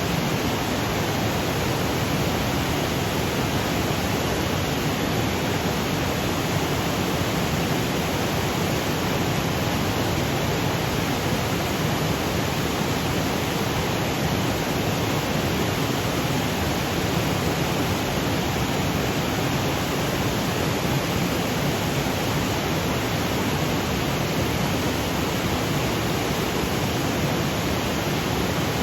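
Mountain waterfall cascading over granite boulders: a steady, even rush of falling water.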